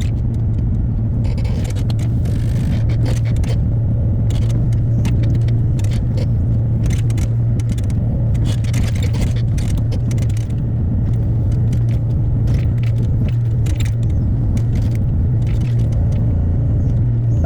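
Hyundai HX60A excavator's diesel engine running steadily under work, with frequent irregular clattering and scraping of rock and debris against the steel bucket.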